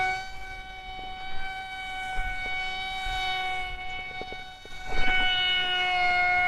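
Small electric motor and propeller of a toy foam glider running at a steady high-pitched whine while held in the hand, getting louder about five seconds in.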